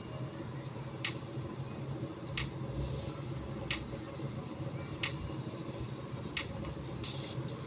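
Short sharp clicks at an even pace, about one every second and a third, over a steady low hum.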